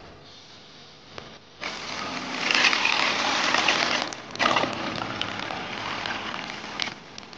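Water pouring and splashing into a metal basin of soaked soybeans: a steady, loud rushing hiss that starts about a second and a half in, with small clicks of the beans.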